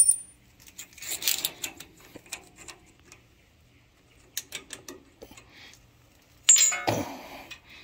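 Small steel parts clinking and scraping as a steel spacer is worked off a lawn tractor transaxle's axle shaft. A small metal piece tinks down onto concrete at the start, and about six and a half seconds in the steel spacer is dropped on the concrete floor with a sharp, ringing clank, the loudest sound.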